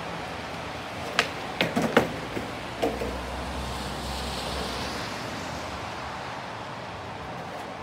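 Skateboard clattering on brick paving: a quick run of sharp knocks about a second in, as the deck and wheels strike the ground, the loudest near two seconds. Then a low rumble of the wheels rolling over the paving, over a steady background hiss.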